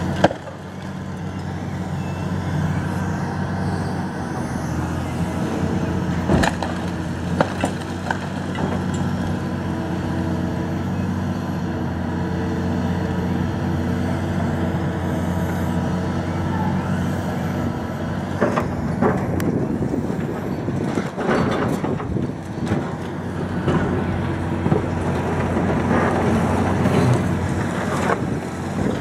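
Liebherr R954C high-reach demolition excavator's diesel engine running steadily under hydraulic load, with scattered cracks and crashes of concrete being crushed and debris falling, most frequent in the second half.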